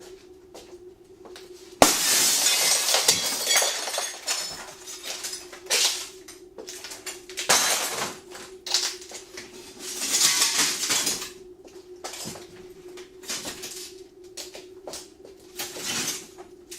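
Window glass struck hard and shattering: a sharp impact about two seconds in, then a couple of seconds of crashing, breaking glass. Further knocks and smaller bursts of breaking glass follow, with another loud crash around ten seconds in.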